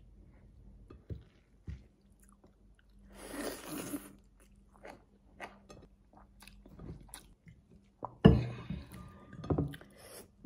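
A person eating goat ribs and rice by hand, with chewing and biting and scattered small clicks. There is a short noisy rustle about three seconds in, and a sharp thump about eight seconds in that is the loudest sound.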